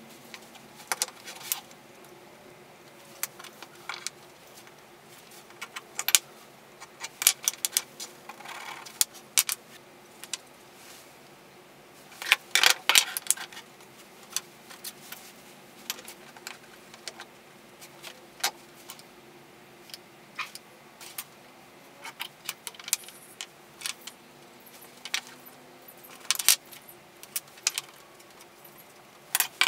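Steel rule and combination square clinking and tapping against walnut blocks and the bench top as pieces are measured and marked out: scattered sharp clicks, with a denser run of rattling taps a little before the middle.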